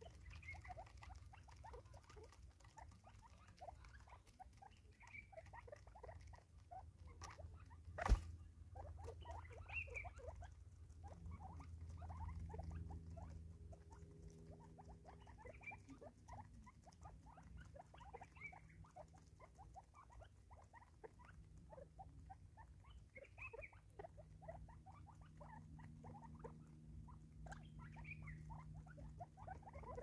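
Natal spurfowl pecking seed off a wooden log: a faint, steady patter of quick taps. Short soft calls sound every few seconds, and there is one sharp knock about eight seconds in.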